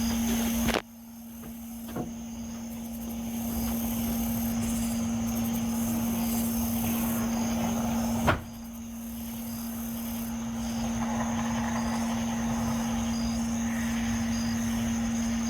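A steady low hum with a faint high whine above it over background noise: the mysterious droning 'nging' sound heard from the sky. Two sharp knocks, about a second in and about halfway through, each followed by a brief drop in level.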